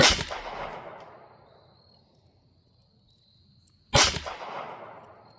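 Two shots from a Taurus TX22 Competition .22 LR pistol, one at the start and one about four seconds later, each followed by an echo fading over about a second and a half.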